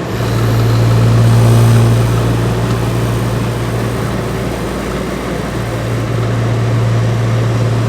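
1960s Westinghouse window air conditioner's compressor starting: a deep electrical hum cuts in suddenly, loudest for the first couple of seconds as the compressor struggles to start, then settles into steady running over the rush of the fan.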